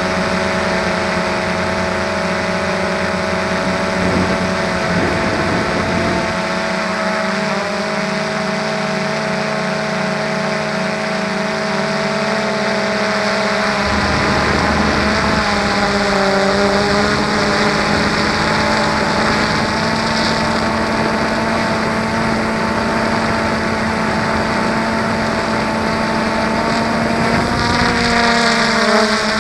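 Motors and propellers of a small remote-controlled aircraft, heard close from on board, running with a steady whine whose pitch shifts a few times, most clearly about halfway through and near the end.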